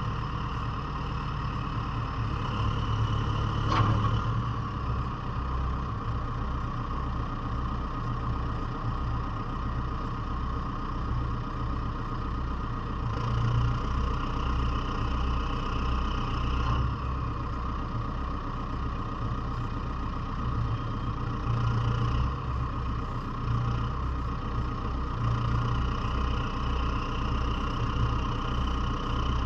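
Diesel engine of a JCB 3CX Sitemaster backhoe loader running steadily at low revs, with a single sharp knock about four seconds in.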